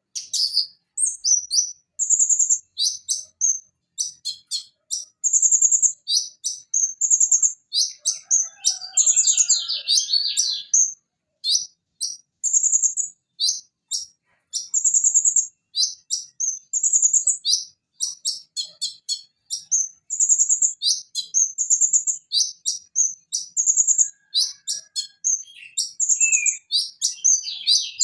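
Purple-throated sunbird (konin, Leptocoma sperata) singing a rapid, high-pitched song of short chirps and fast trills, delivered in quick phrases with brief gaps between them.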